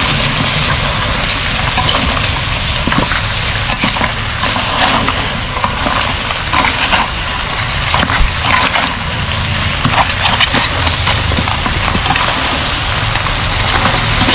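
Metal spoon and spatula clinking and scraping against a wok and crab shells as cooked mud crabs and corn are tossed in butter sauce, with frequent short clicks over a steady sizzle and a low steady rumble underneath.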